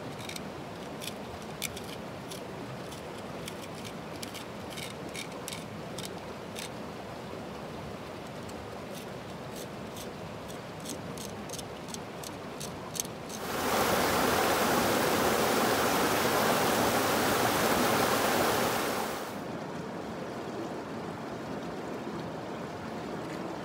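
Steady rushing of the river with many short, sharp clicks of a hand tool scraping and tapping on granite bedrock while crevicing for gold. About halfway through, a much louder, even rush of noise comes in for about six seconds, then drops back to the quieter rush.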